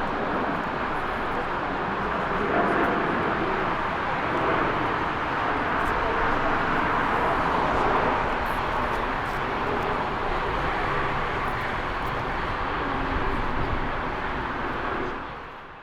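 Jet airliner engines running with a steady loud roar as the plane passes, fading out near the end.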